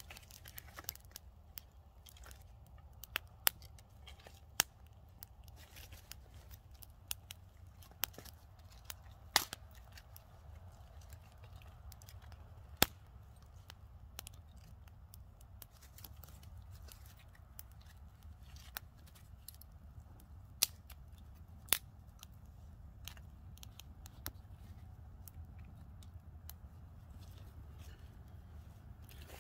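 Small campfire of dry twigs burning, crackling with scattered, irregular sharp pops and snaps.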